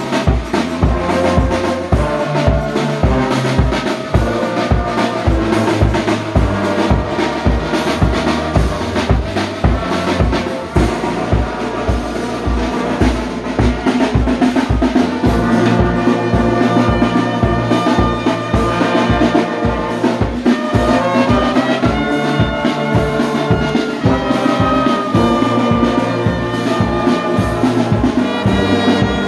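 Brass band of tubas, euphoniums and trombones playing a hymn in sustained chords over a steady bass-drum beat, about two beats a second.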